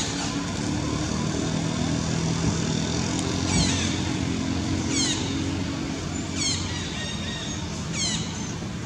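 A bird repeating a short, high, falling call about every second and a half, over the steady low hum of an engine running.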